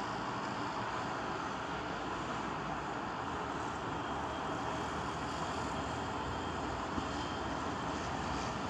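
Steady running of a heavy diesel engine, even and unbroken.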